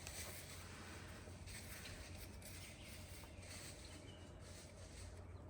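Quiet backyard ambience with chickens foraging: a faint steady low hum, a few soft ticks and a brief faint bird note.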